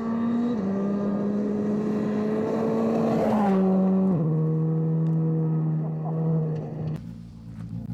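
Škoda Fabia R5 rally car's engine running hard on a gravel stage. The note rises slowly and drops in steps three times, then holds steady, with a brief rush of gravel and tyre noise around three seconds in. The sound changes abruptly about seven seconds in.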